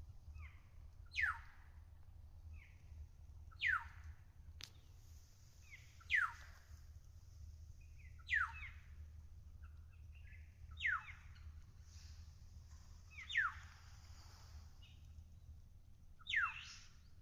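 A bird calling over and over, a loud, quick downward-sweeping whistle about every two and a half seconds, with softer short notes in between. A steady low rumble runs underneath.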